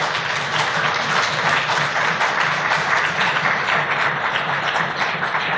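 Audience applauding steadily: many hands clapping at once in a dense, even patter.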